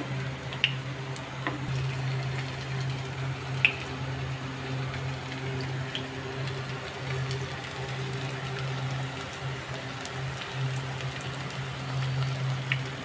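Goat-brain pakoras deep-frying in hot oil: a steady sizzle with a few sharp pops, over a steady low hum.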